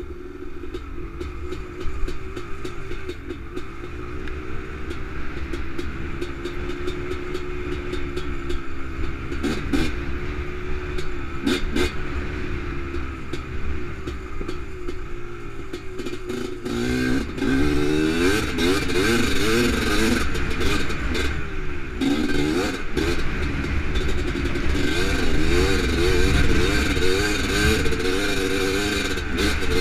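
1987 Honda TRX250R's single-cylinder two-stroke engine running under way, its pitch rising and falling with the throttle. Past the halfway point it gets louder, with quicker swings up and down in revs.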